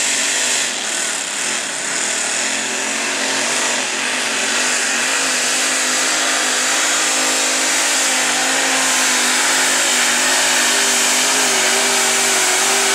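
Modified pulling tractor's multiple supercharged engines running hard under load as it drags the weight sled down the track. It is a loud, steady engine sound that holds nearly one pitch throughout.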